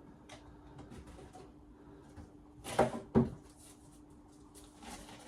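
Two hard knocks about half a second apart near the middle, like something heavy being handled or set down, over a faint steady hum.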